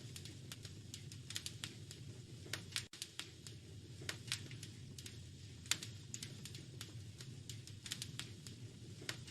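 Wood fire crackling in a fireplace: irregular snaps and pops, several a second, over a steady low rumble of the burning fire.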